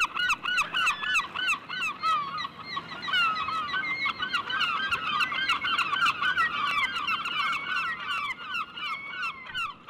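A flock of gulls calling continuously, with many short, harsh calls overlapping one another.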